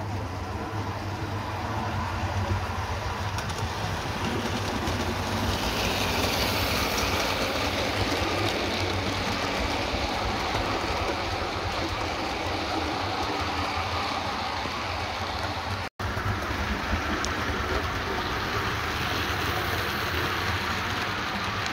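Bachmann OO gauge GWR Hall class model locomotive and its coaches running along the track, a steady rumble of wheels on rail that grows louder as the train comes close. The sound drops out for an instant about sixteen seconds in.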